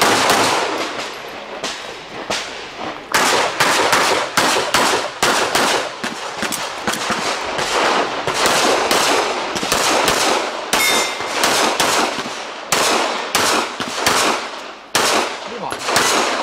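Pistol fire in rapid pairs and strings of shots, each crack followed by echo, with short pauses as the shooter moves between firing positions. Some hits give a metallic clang, typical of steel targets being struck.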